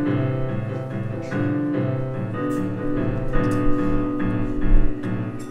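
Piano music: chords and a melody, with the notes changing in step about every half second.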